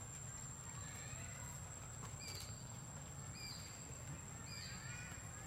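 A short high call with a falling tail, repeated about once a second from about two seconds in. It sounds over a steady high whine and a low rumble.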